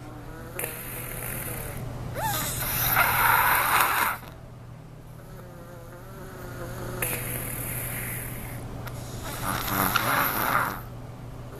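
A three-year-old child snoring in sleep: several raspy, buzzing snoring breaths, two of them loud, with quieter breaths between.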